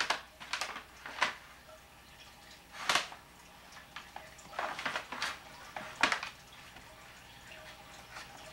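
Light, irregular knocks and rattles, about six short ones with a small cluster in the middle, as a toddler handles a wooden broom handle against a paper sack of pine cones.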